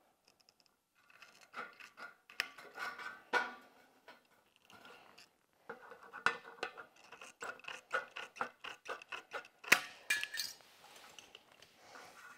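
Tin snips cutting a leg out of metal window trim: a long run of short, crisp snips and clicks, with one sharper snap near the end.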